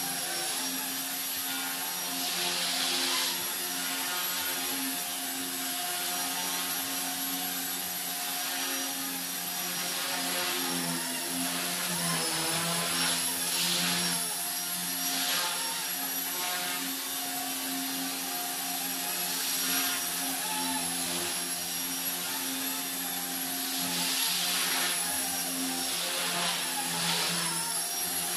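Blade mCP X BL micro collective-pitch RC helicopter in flight: a steady rotor buzz with a high, thin electric-motor whine that wavers slightly in pitch. It swells and fades every few seconds as the helicopter moves nearer and farther.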